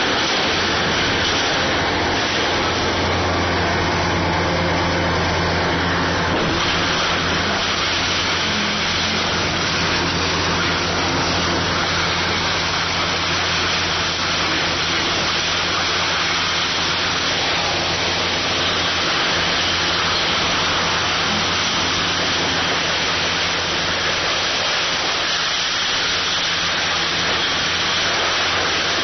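Kobelco SK500 hydraulic excavator's diesel engine running steadily under a constant rushing hiss. The engine note shifts slightly about six and a half seconds in.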